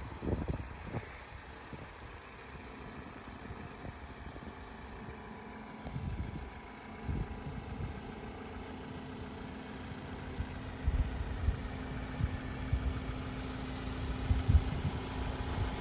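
Ford Transit tipper's diesel engine idling with a steady hum, and wind gusting on the microphone in the last few seconds.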